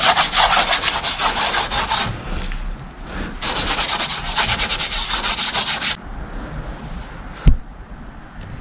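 Fast, even, scratchy rubbing in two spells of a few seconds each, followed by a single sharp knock near the end.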